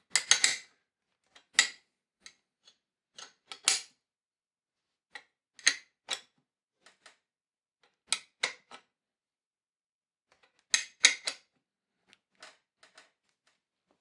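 Metallic clicks and clinks from a crank-bolt wrench working the fixing bolt of a first-generation Dura-Ace crankset, in short clusters about every two seconds.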